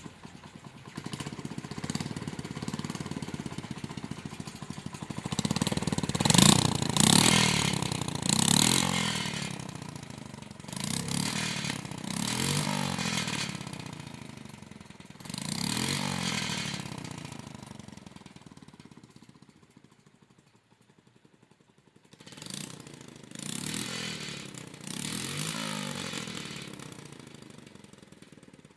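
Honda Monkey Z50J's 49cc single-cylinder four-stroke engine running and being blipped about eight times, each rev rising and falling back toward idle. The exhaust leaks and its protector (heat shield) rattles, before the leak has been fixed.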